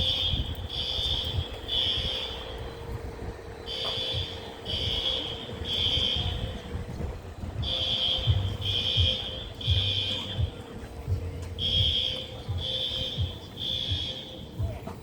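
Building fire alarm sounding the temporal-three evacuation pattern: three high beeps about a second apart, then a pause, repeating every four seconds. A low rumble runs beneath.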